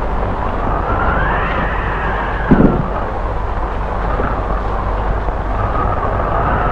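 Typhoon wind howling, rising and then falling in pitch, over a steady rush of heavy rain. A brief low thump about two and a half seconds in is the loudest moment.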